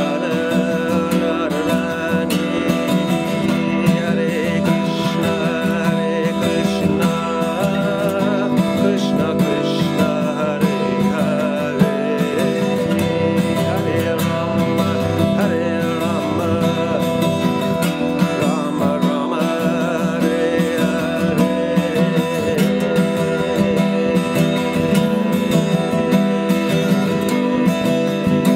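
Steel-string acoustic guitar strummed steadily, chords ringing on without a break.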